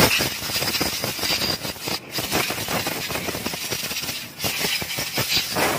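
Compressed-air blow gun blasting air onto a motorcycle's rear drum brake plate and shoes to blow the dust off: a loud, steady hiss, broken briefly about two seconds and about four seconds in.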